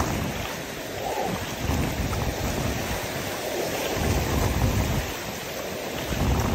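Wind gusting on the microphone, rising and falling several times, over the wash of shallow surf.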